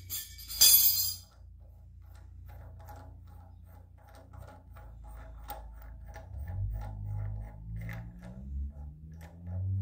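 Harmonic balancer installation tool being turned by hand to press the balancer onto a Chevy 305's crankshaft: a few loud metal clinks as the tool is handled, then a run of light, rapid ticks as the nut and bearing turn on the threaded rod, with a low tone slowly rising in pitch near the end.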